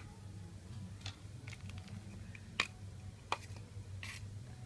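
Cleaver knocking on a wooden cutting board a few times while slicing limes, the loudest knock about two and a half seconds in. A short scrape near the end as the cleaver pushes chopped greens onto a plate.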